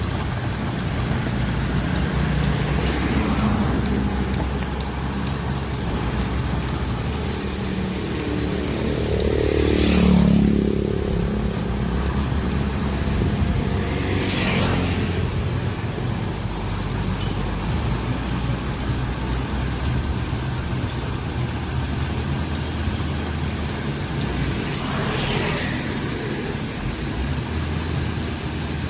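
Heavy machinery engines running steadily. Louder sweeping swells come about ten, fifteen and twenty-five seconds in; the one at ten seconds is the loudest.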